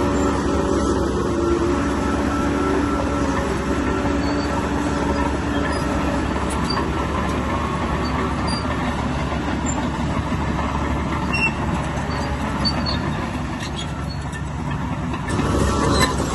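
Bulldozer working: its diesel engine running steadily under load, with the metallic clatter and squeal of its steel tracks.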